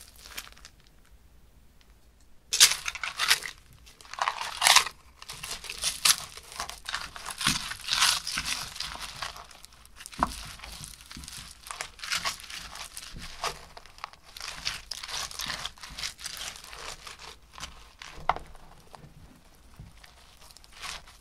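Foam slime being squeezed by hand and then stirred with a wooden stick into small foam beads in a glass dish, giving irregular crinkling, crunching crackles. Almost quiet for about the first two seconds, then a dense run of crackles.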